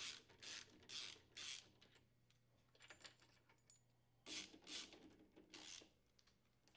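Socket wrench turning a 7/16-inch socket to back out counterbalance-weight mounting bolts. It makes faint short strokes about twice a second, four near the start and four more after a pause of about three seconds.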